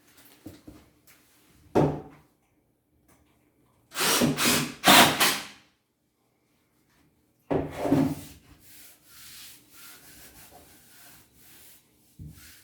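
Wood rubbing and scraping against wood, in two loud strokes of a second or two each with fainter scraping after, and a single knock shortly before.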